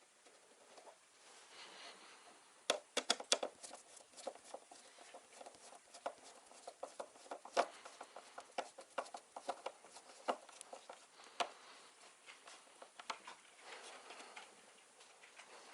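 Hands working on a computer build in a plywood case: irregular small clicks, taps and knocks of parts and tools being handled, with a few sharper clicks.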